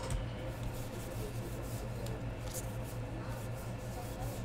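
Trading cards handled by hand: soft rubbing and a few light flicks of cardstock as cards are slid through a pack, over a steady low electrical hum.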